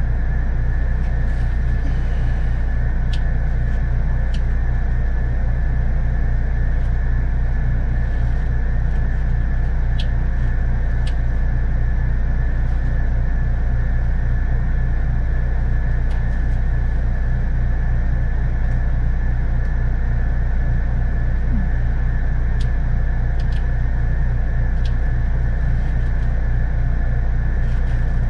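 A steady low mechanical rumble or hum, with a thin high whine held throughout and a few sharp light clicks and taps now and then.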